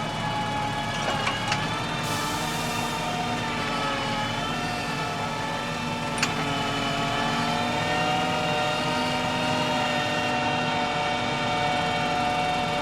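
Tractor diesel engine running steadily, its note wavering about four to six seconds in and settling slightly higher after. A sharp click about six seconds in.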